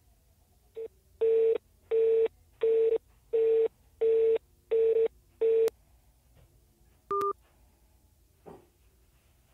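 Mobile phone beeping during a *999 balance-check call: a short blip, then seven equal beeps of one steady pitch, about one every 0.7 s. A brief double-pitched beep follows about seven seconds in.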